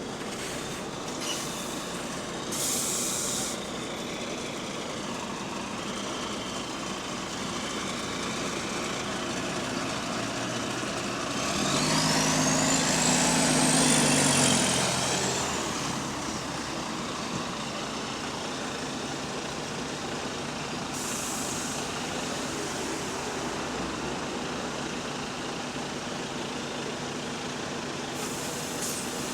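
Bus engine running with an exhaust leak. About twelve seconds in it pulls harder: the engine note grows louder and a high whine rises and then falls over a few seconds before settling back. Short hisses of air from the air brakes come near the start, about two-thirds of the way through and near the end.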